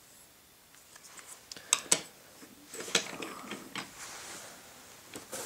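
A few sharp clicks and knocks of wooden toy trains being handled and set down, with a soft rustle about four seconds in.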